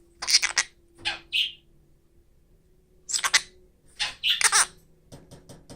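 Half-moon conure giving several short, harsh screeching calls, one of them falling in pitch, followed by a few quick faint ticks near the end.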